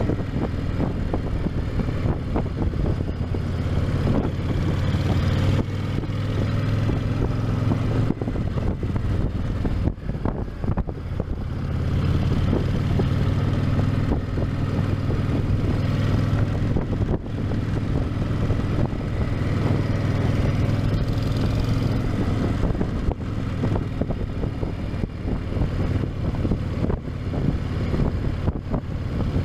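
Honda VTX 1300's V-twin engine running through its stock exhausts at a steady, even speed, briefly quieter about a third of the way in.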